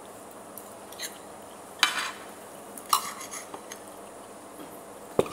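Metal cutlery clinking against a dinner plate during a meal: four or so sharp clinks spread through, the loudest near the end.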